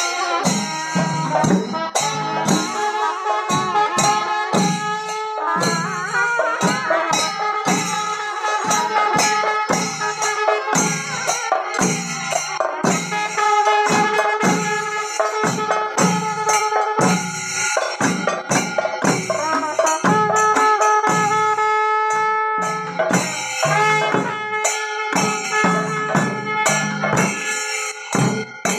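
Kerala temple procession band: a wind instrument plays a winding melody of held notes over steady drum strokes, about two a second, with jingling cymbals.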